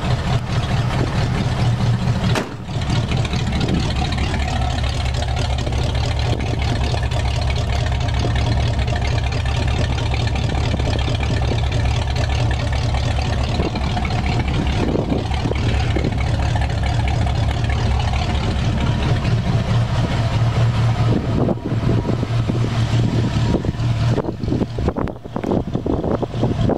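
1982 Ford Bronco's 302 V8 idling steadily through true dual glasspack exhausts, with a loud, deep exhaust note. The level dips briefly about two and a half seconds in. The owner says this engine runs slightly too lean and likes to stall.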